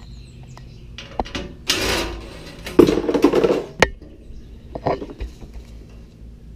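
Clattering and knocking of tools and metal parts being handled, with a louder rattling stretch about three seconds in and a sharp click just after it.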